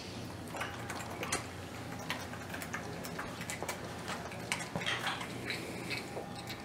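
Young yellow-bellied marmot suckling milk from a syringe nipple: soft, irregular wet clicks and smacks, a few a second.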